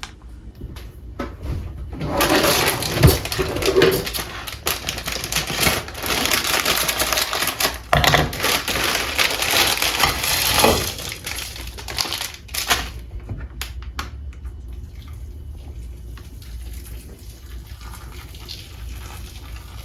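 Instant ramen being made with freshly boiled water from a small electric kettle: a long stretch of pouring and crinkly packaging rustle, followed by a few sharp clicks and knocks of handling.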